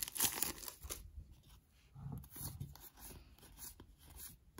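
Crinkling of a foil booster pack wrapper that dies away after about a second, followed by faint rustling and sliding of trading cards being handled.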